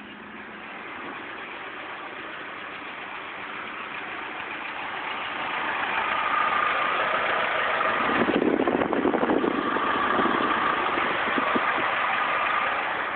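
1998 Ford Escort ZX2's 2.0-litre four-cylinder running through an aftermarket Borla exhaust. It gets louder from about four seconds in, with a rougher, pulsing surge around eight seconds in.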